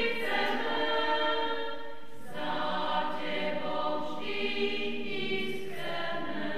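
Women's choir singing in harmony, sustained notes that move to new chords every second or two.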